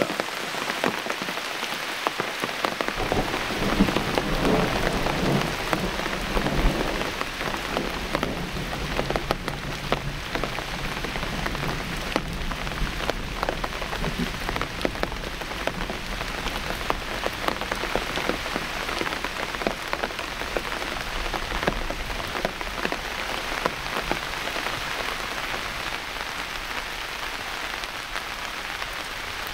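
Steady heavy rain falling on a silnylon tent fly, with many small drop hits. A long, low rumble of distant thunder runs under it through the first half and fades.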